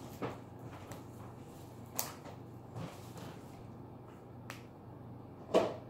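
Cockatoo cracking and crunching a snack in its beak: about five sharp cracks a second or so apart, the loudest near the end.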